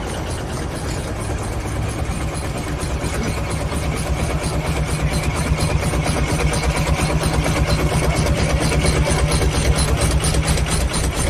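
An engine running steadily with an even, rapid beat, growing gradually louder from about two seconds in.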